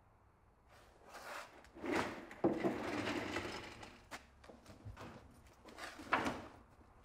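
Rustling and handling sounds of a man getting up from an office chair, stepping on a concrete floor and pulling a leather jacket off a hanger, with the longest, loudest rustle about two seconds in and a shorter one about six seconds in.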